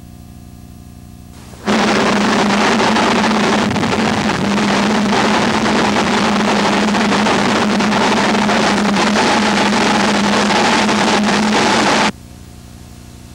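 Wind tunnel running with air flowing at about 20.5 m/s: a loud steady rush of air with a low hum and a fainter higher tone. It starts abruptly about two seconds in and cuts off abruptly near the end, leaving only a faint low hum.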